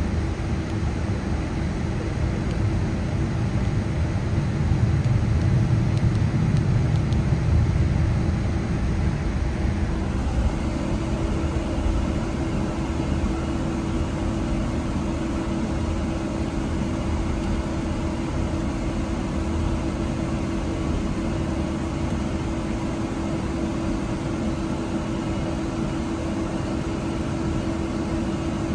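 Steady engine and airflow drone inside the cabin of a Boeing 777-200ER, with a constant hum over a low rumble. The rumble swells briefly about five seconds in, and the sound changes slightly about ten seconds in.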